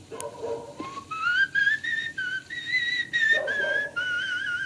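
Someone whistling a tune: after a short rising glide about a second in, a string of held notes steps up and down, with a wobble on the longer notes.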